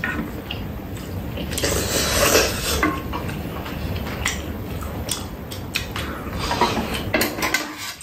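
Eating sounds: spoons and chopsticks clicking against ceramic bowls on a metal tray, with a longer noisy sip of stew about two seconds in.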